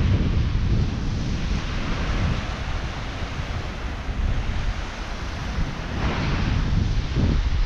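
Wind buffeting the microphone: a low, fluttering rumble over a steady rushing hiss, rising in gusts about a second in and again near the end.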